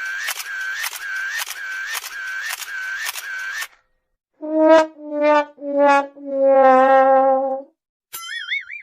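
Sad trombone "wah-wah-wah-waaah" sound effect: three short descending brass notes, then a longer, lower note that wavers. Before it, a repeating electronic chirp with a click runs about twice a second and stops. Near the end comes a wobbling, warbling cartoon tone.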